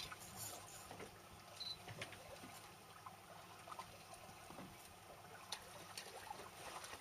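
Faint trickling and lapping of water, with scattered small clicks and ticks.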